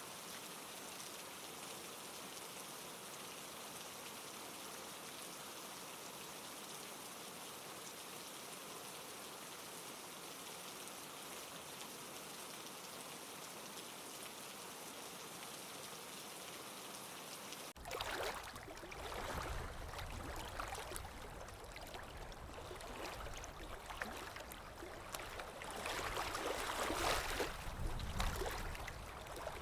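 Steady rain falling, an even hiss, that cuts abruptly about 18 seconds in to louder running water rushing and splashing unevenly, like a stream.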